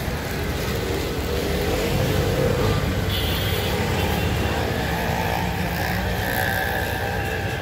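Steady outdoor street noise, mainly a low rumble of the kind that traffic makes.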